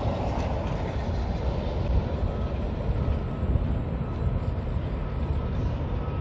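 Steady rumble of passing motor traffic.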